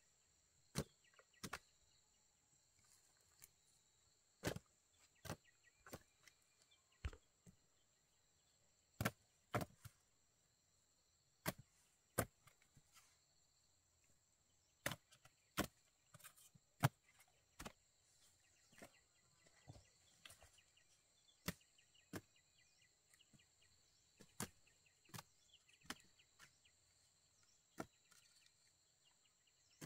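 Irregular sharp chopping strikes, roughly one every second or two, some in quick pairs, over a steady high-pitched insect drone.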